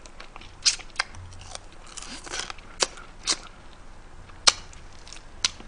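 Close-miked eating: slurping noodles and chewing, with about half a dozen sharp mouth smacks and clicks spread through.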